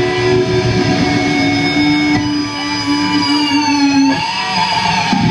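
Electric guitars on a loud stage ringing with held feedback tones, one of which bends and wavers in pitch about four seconds in. Near the end the band starts a death metal song.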